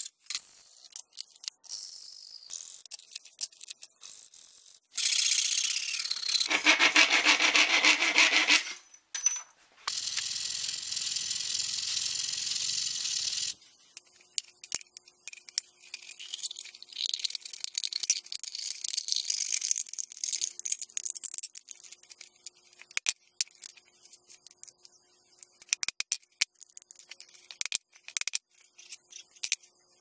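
Hand hacksaw cutting a small metal plate clamped in a bench vise, rasping strokes, followed by a few seconds of a steady powered tool running. The second half is quieter scratching and crinkling as a thin aluminium drink can is cut open with a knife.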